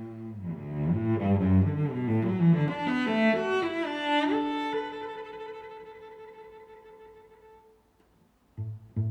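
Background music on bowed strings, cello-like, playing a climbing run and then one long held note that fades away. A new phrase of short, plucked-sounding notes starts near the end.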